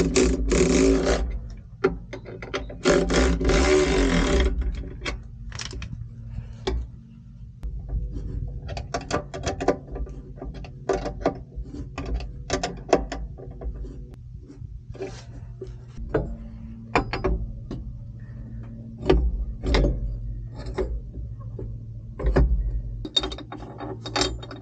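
Air bag bracket bolts being run down with a socket ratchet: two longer whirring runs in the first few seconds, then many scattered ratchet clicks and metal clinks over a steady low hum.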